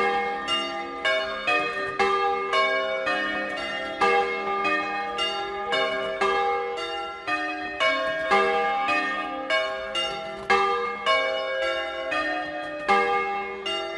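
A ring of bronze church bells cast by Francesco De Poli, swung and rung on a portable frame in the Bolognese style (a "doppio"). Overlapping bell strokes come roughly two a second in an unbroken pattern, with a louder stroke standing out every couple of seconds.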